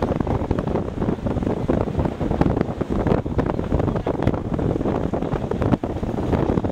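Wind buffeting the microphone aboard a moving boat, crackling and gusting over the rush of water along the hull.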